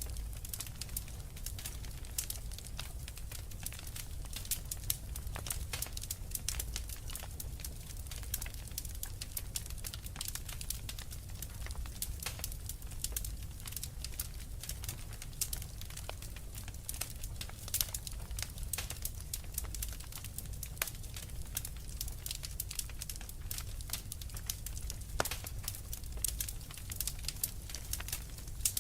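Wood fire crackling, with frequent irregular sharp pops and snaps over a steady low rumble.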